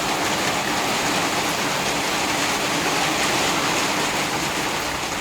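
Hail falling hard in a dense, steady downpour.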